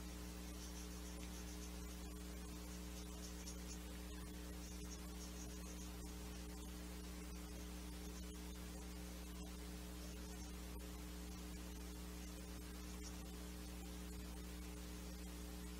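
Steady electrical mains hum with a low buzz and several overtones, over a faint even hiss.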